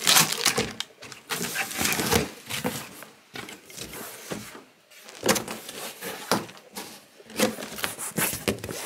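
Cardboard shipping box being opened by hand: irregular scraping and crackling as the flaps are pulled back, with plastic garment bags crinkling once the box is open near the end.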